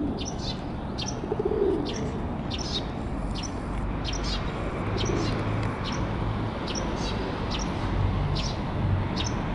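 Small birds chirping in short, high notes about two a second, with a pigeon's low coos at about a second and a half and again around five seconds in.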